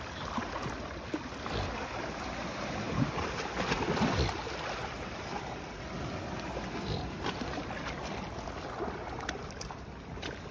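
Wind buffeting the microphone over moving seawater, a steady rushing noise. Near the end a hooked catfish splashes at the surface against a concrete wall.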